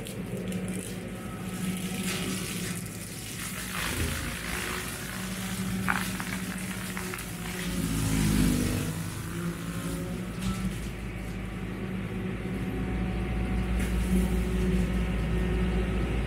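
Massey Ferguson 4707 tractor running under load, driving a Baumalight CP572 brush cutter that is chewing through brush, with a rough shredding hash over the engine's steady hum and a few sharp knocks. The engine note shifts and swells about halfway through.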